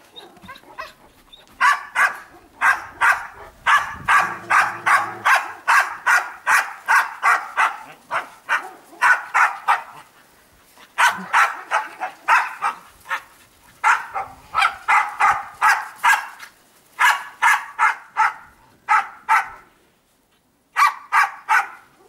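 Dog barking in rapid runs of about four barks a second, with short pauses between the runs.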